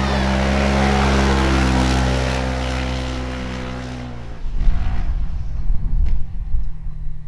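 Rally car engine at high revs going past, one steady note that swells about a second in, drops slightly in pitch as it passes and fades out about four seconds in. Then irregular low rumbling with sudden thumps.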